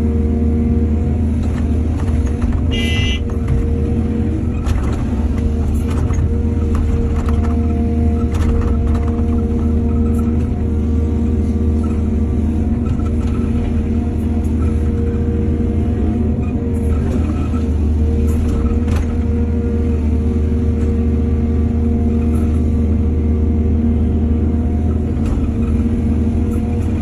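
Heavy diesel engine of earthmoving equipment running steadily under load, with scattered knocks and clanks and a brief high squeal about three seconds in.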